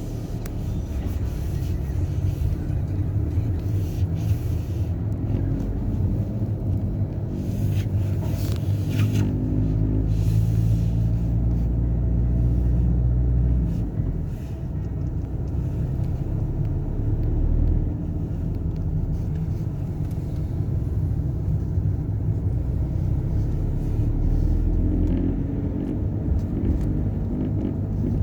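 Inside the cabin of a 2019 VW Golf Mk7.5 on the move: steady low road and engine rumble with an intermittent light rattle from the upper dashboard. The dealer workshop puts the rattle down to the storage drawer left of the steering wheel.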